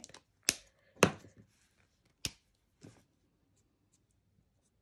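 Stampin' Blends alcohol markers being handled, their plastic caps and barrels clicking and tapping on the desk: four sharp clicks within the first three seconds, the second the loudest.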